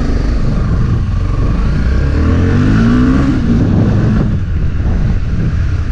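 Honda CB300's single-cylinder engine running under way on a test ride, its revs climbing about two seconds in and dropping back a little over a second later.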